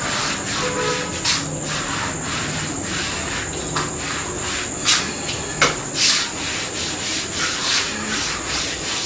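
A cloth rubbed hard in quick, irregular strokes over a freshly pasted plastic vinyl floor sheet, pressing it flat. Each stroke is a short swish, the loudest about five and six seconds in.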